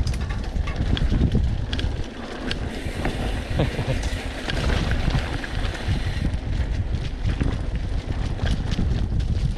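Mountain bike rattling over a rough, stony dirt trail, with a stream of small clicks and knocks from the bike and a steady wind rumble on the handlebar camera's microphone.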